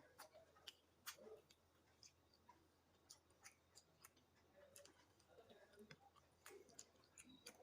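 Faint eating sounds: irregular small mouth clicks, smacks and chewing.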